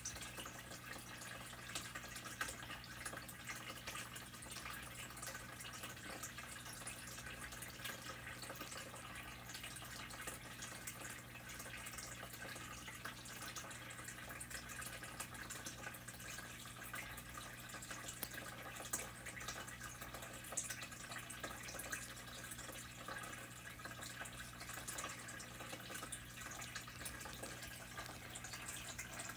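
Faint steady water trickle with light drips, over a low steady hum.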